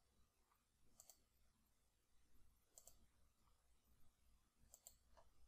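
Near silence with a few faint, sharp computer mouse clicks, spaced a second or two apart.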